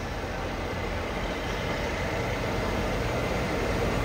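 Diesel engine of a Mitsubishi Fuso 220PS 6x2 cargo truck running as the truck drives slowly toward the microphone, growing gradually louder.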